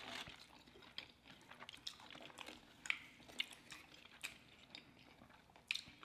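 Faint eating sounds: chewing and the crunch of tortilla chips, with scattered short crackles as chips are picked from a pile.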